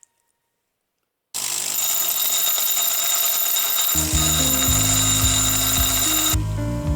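A power tool starts suddenly about a second in, running with a steady high-pitched whine and harsh noise, and cuts off near the end. Background music with a stepping bass line comes in about four seconds in.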